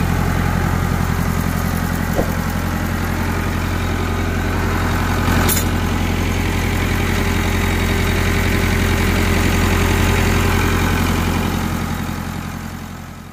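Massey Ferguson 188 tractor's diesel engine idling steadily, running again after its fuel flow was fixed. There is one short click about five and a half seconds in, and the sound fades out near the end.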